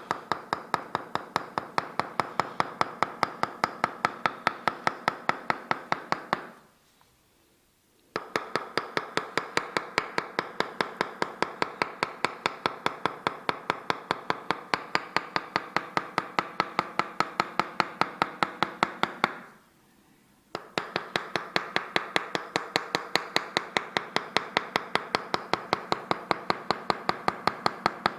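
Tok-sen massage: a wooden mallet tapping a wooden wedge held against the body, in a fast, even rhythm of about four to five strikes a second. Each strike rings with a pitched wooden note. The tapping stops briefly twice, about 7 and 20 seconds in.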